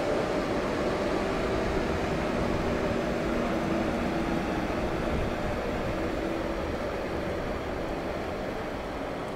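Steady mechanical rumble of a vehicle with a low droning hum, easing off slightly near the end.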